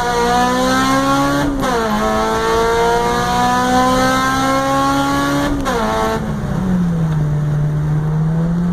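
Acura RSX Type-S's 2.0-litre four-cylinder engine pulling under acceleration, its pitch climbing steadily and dropping sharply twice at upshifts, about a second and a half in and again about five and a half seconds in. It then settles to a steady, lower-pitched drone for the last couple of seconds.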